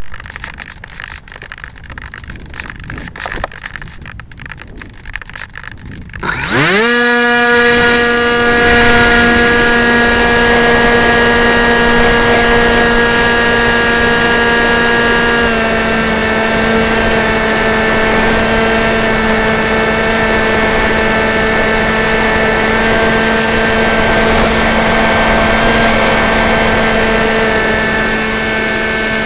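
Electric motor and propeller of a Dynam Hawk Sky RC plane, heard close up through its onboard camera. At first there is only low handling and wind noise. About six seconds in, the motor spins up with a fast rising whine as the plane is launched, then settles into a steady high-pitched drone with wind rush as it climbs. A little past the halfway point the pitch drops slightly with a throttle change.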